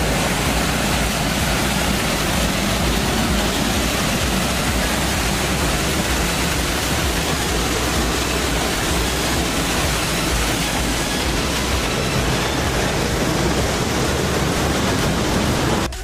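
Small waterfall pouring into a rock pool: a steady, loud rush of falling and splashing water.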